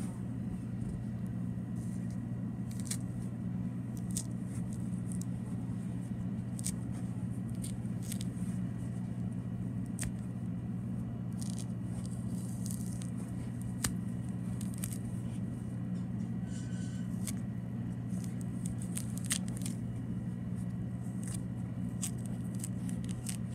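Orange peel being pulled and torn off the fruit by hand: scattered small tearing and crackling snaps, over a steady low hum.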